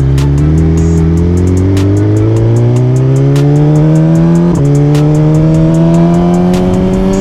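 2023 Suzuki GSX-R1000's inline-four engine pulling hard as the bike accelerates, its pitch rising steadily. One upshift about two-thirds of the way through drops the pitch before it climbs again.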